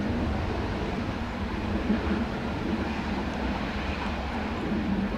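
Jet engines of a Ryanair Boeing 737-800 running as it taxis, a steady low rumble.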